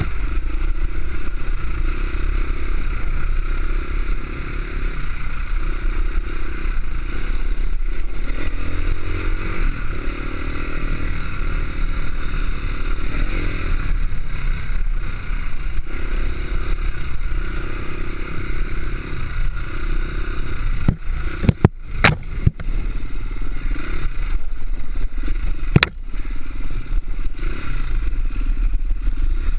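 Off-road dirt bike engine running under the rider, its pitch rising and falling with the throttle over a rocky trail, with a steady low rumble and scraping, clattering noise from the ride. About two-thirds of the way through comes a cluster of sharp knocks, the loudest sounds, and one more knock a few seconds later.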